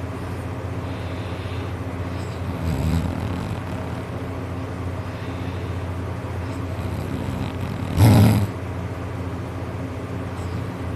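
A man snoring heavily in his sleep: a short snore about three seconds in, then a loud snort near the eight-second mark, over a steady low hum.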